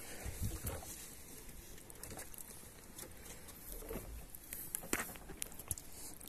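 Faint handling noise in a small aluminium fishing boat: scattered light clicks and taps, a few a second at most, over quiet water, as the fishing line is handled by hand.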